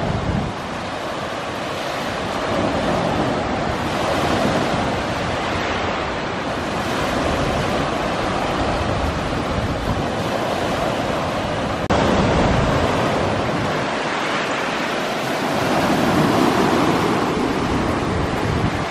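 Small ocean waves breaking and washing up a shelly beach, the surf swelling and easing as each wave comes in, with an abrupt jump in loudness about two-thirds of the way through.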